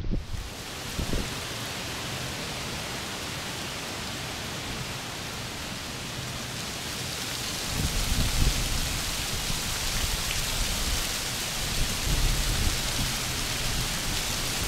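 Strong wind: a steady rushing hiss, with low, uneven buffeting on the microphone from about halfway through.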